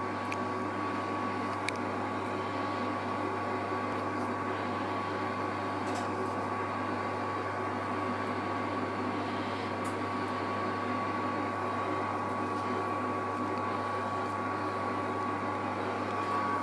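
A kitchen appliance running: a steady low hum and fan-like rush with a constant thin whine, unchanging throughout.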